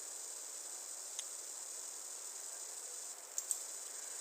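Steady high-pitched background hiss, with a few faint clicks about a second in and again near the end.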